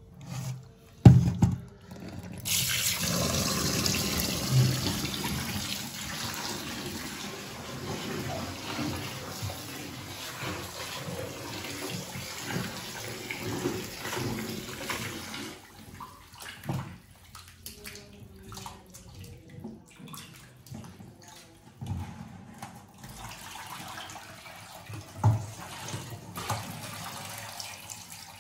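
Tap water running into a stainless steel bowl of raw chicken pieces in a steel sink as the chicken is rinsed by hand. The water starts about two and a half seconds in and is strongest until about halfway, then softer. A sharp knock comes about a second in, and a few more come later, the loudest near the end.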